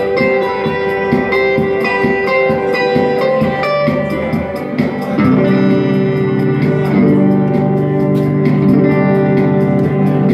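Solo guitar playing: a picked melody at a steady pace, changing about five seconds in to fuller, lower notes that ring on.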